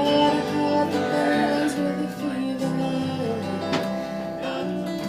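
Acoustic guitar strumming a country-folk accompaniment between sung lines, the chords changing every second or so.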